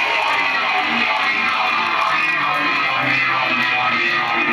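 Rock band playing live, with electric guitar strumming to the fore, recorded from within the audience.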